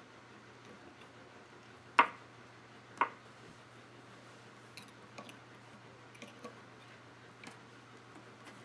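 Knitting tool and fingers clicking against the metal pegs of a wooden knitting loom as stitches are purled. Two sharp clicks come about a second apart, some two seconds in, followed by a few fainter ticks, over a low steady hum.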